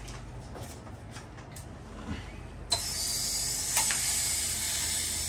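Drain valve at the base of a waterlogged well pressure tank being opened onto a garden hose: a few small clicks, then a little under three seconds in a sudden loud hiss of pressurized water rushing out through the valve, running on steadily.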